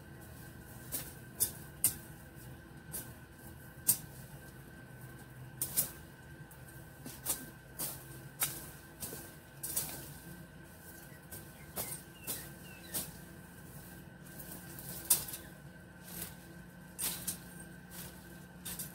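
Sharp snaps of dry woody twigs and stems being cut and broken while clearing brush, irregular, roughly one a second, over a faint steady hum.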